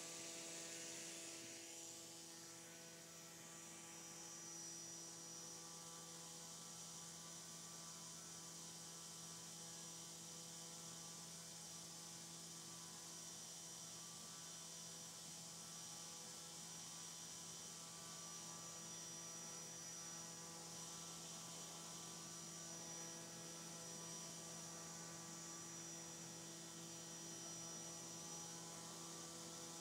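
Drone-scale propeller on a brushless-motor test stand spinning steadily at about 5,000 RPM: a faint, steady hum with a thin high whine above it.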